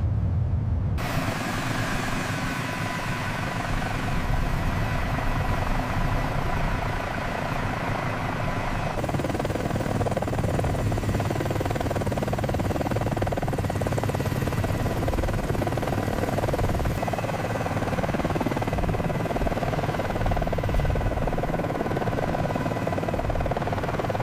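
CH-53K King Stallion heavy-lift helicopter's rotor and turbine engines running steadily, a continuous rumble with a faint steady whine above it. The sound shifts abruptly a few times.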